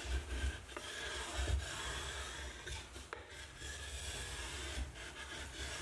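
A wooden block rubbed back and forth along a pre-glued wood veneer edge band, pressing the heat-activated glue onto the board's edge: a continuous scraping rub with a couple of light clicks.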